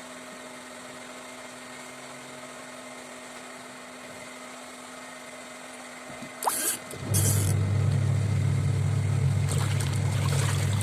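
A faint steady hum, then two short rustling noises, then a motor starting about seven seconds in and running loud and steady with a low hum until it cuts off near the end.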